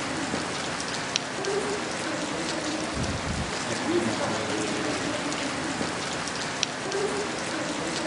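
Playback of a steady-hissing field recording with a faint, wavering voice buried in the static, presented as an EVP of a girl's disembodied voice saying "Please don't kill me." A brief low rumble about three seconds in.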